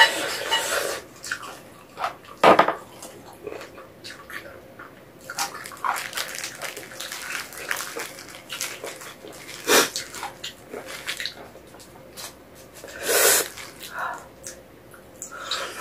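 Close-miked eating sounds: wet chewing and sucking on sauce-covered braised chicken feet, coming in irregular bursts, the loudest about two and a half, ten and thirteen seconds in.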